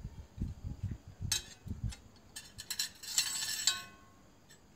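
Plates and metal spoons being set down on a table: light knocks and a few clinks, then a short scraping rustle about three seconds in.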